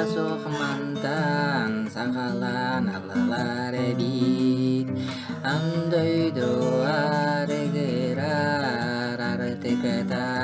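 Music: an acoustic guitar playing under a wordless vocal melody that glides up and down.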